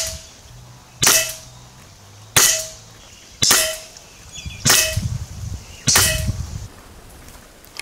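Gare Falcon fully regulated PCP air rifle firing slugs in quick succession: six sharp shots, about one every second and a quarter.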